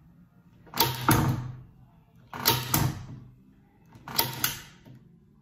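Hand-held staple gun firing staples into the wooden undercut of a snooker table cushion: three shots about a second and a half apart, each heard as two quick, sharp clacks.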